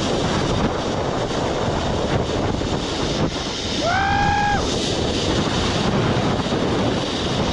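Air rushing over the microphone on a fast zip-line ride, a steady loud rush. About four seconds in, a short high call rises and then holds briefly.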